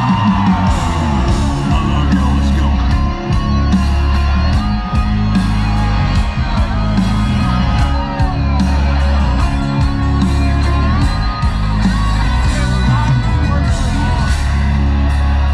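Live country band playing loudly through a concert PA, with heavy bass, a steady drum beat and electric guitar.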